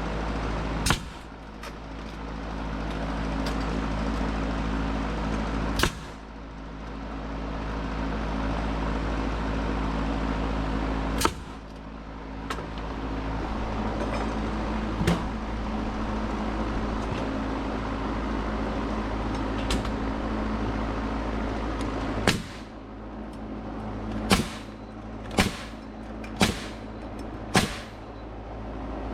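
Nails being driven into wooden ceiling joists: sharp single bangs, about eight in all, with the last five coming about a second apart near the end. Under them runs a steady mechanical hum.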